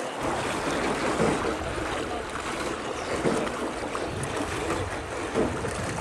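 Water lapping and splashing around a small rowed river boat, swelling about every two seconds, with wind rumbling on the microphone.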